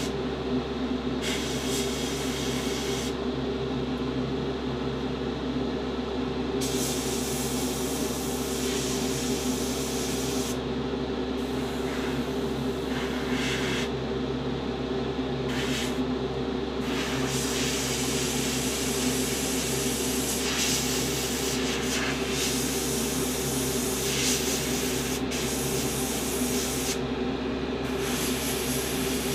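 Airbrush spraying paint in bursts, a hiss that starts and stops as the trigger is worked, the longest run lasting about ten seconds. A steady low mechanical hum runs underneath.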